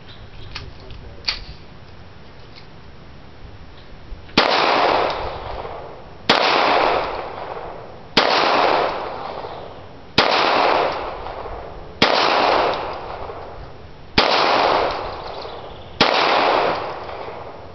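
Pistol shots fired slowly one at a time: seven shots about two seconds apart, starting about four seconds in, each with a long echo that fades over a second or more.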